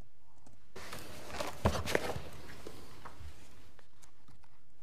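Papers and objects handled at a lectern near its microphone: rustling with two sharp knocks about a third of a second apart, a second and a half in, then a few faint ticks over quiet room tone.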